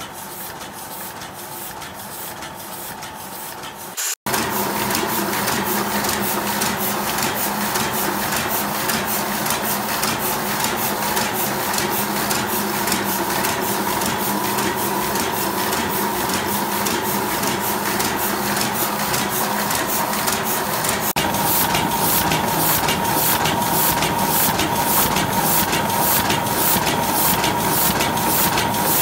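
Printing press machinery running, a steady mechanical hum with fast, even clicking from its moving parts. The sound drops out briefly about four seconds in, comes back louder, and steps up again about two-thirds of the way through.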